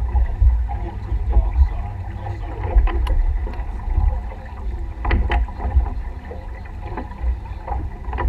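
Wind buffeting the microphone in an uneven low rumble, over the wash of water along a sailboat's hull under way. A few sharp clicks stand out, about three and five seconds in.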